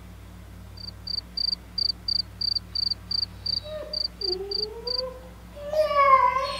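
A cricket chirping in an even run of about thirteen short chirps, roughly three a second, the stock sound for an awkward silence. Over the last few seconds a Doberman puppy whines in rising and falling tones, loudest near the end.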